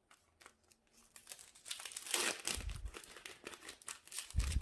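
Foil wrapper of a Magic: The Gathering booster pack crinkling and tearing as it is opened by hand: quiet for about a second, then a dense run of crackles, loudest about two seconds in, with a couple of dull thumps of handling on the table.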